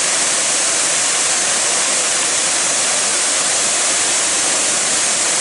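Waterfall cascading: a loud, steady rush of falling water, bright and hissy.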